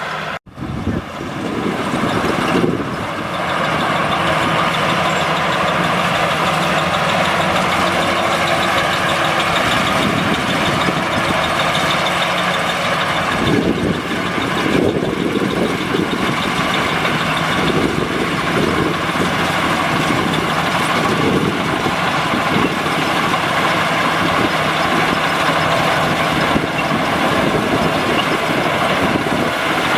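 Combine harvester engine running steadily under load, with a momentary cut-out in the sound about half a second in.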